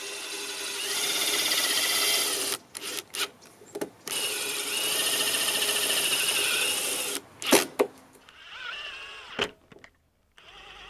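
Cordless driver running screws in to fix a plastic gate-latch body to a post: two long runs of about three seconds each, then a shorter run near the end, with clicks and knocks between them as the bit is set on the next screw.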